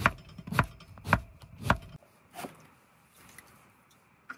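Knife chopping eggplant on a cutting board: five cuts about half a second apart, the last one lighter.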